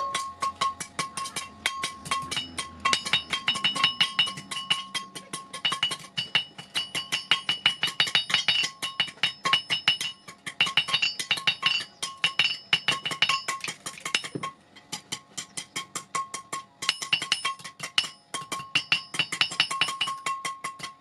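Hammer striking hot metal on an anvil in a rapid, steady rhythm, each blow ringing out with a bright metallic tone, with a few brief pauses between runs of blows.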